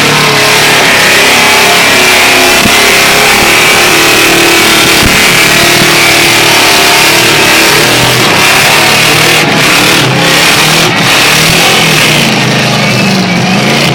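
Ford Lightning pickup doing a burnout: its V8 engine held at high revs with the rear tyres screeching without a break.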